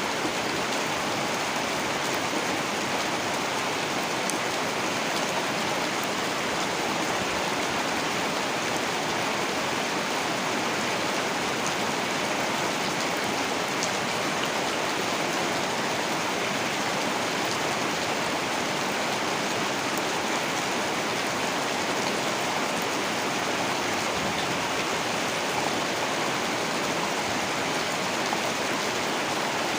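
Heavy rain falling steadily: an even, unbroken hiss with a few faint drop taps.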